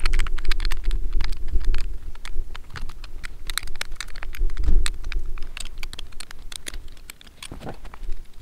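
Hardware being worked off an antenna mast with hand tools: a rapid, irregular run of small clicks and taps over a low rumble.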